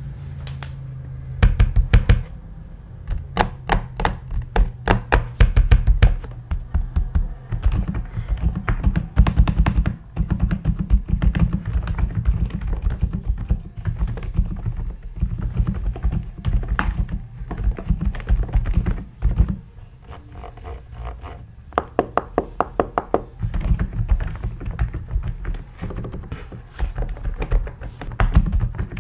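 Typing on an Epomaker TH108 V2 Pro mechanical keyboard: fast runs of key presses with a deep, low sound under each keystroke, beginning about a second and a half in and easing off briefly about twenty seconds in.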